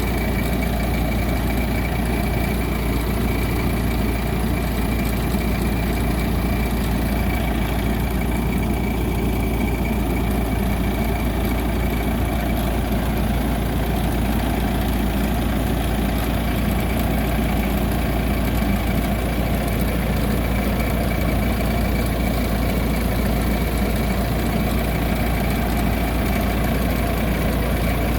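Rice combine harvester running steadily, its engine holding an even hum with a steady high whine over it.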